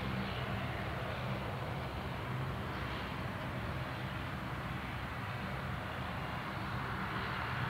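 Airliner engines running at taxi power: a steady drone with a low hum beneath it.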